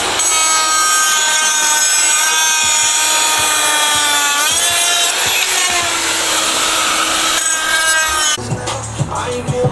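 A power tool running with a steady high whine, its pitch sliding up briefly about four and a half seconds in; it stops a little over a second before the end.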